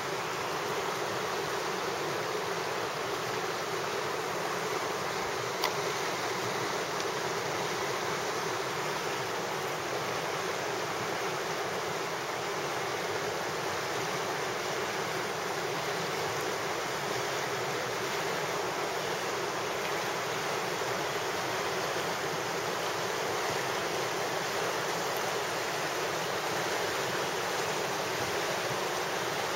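River water rushing steadily over shallow rapids, an even, unbroken hiss.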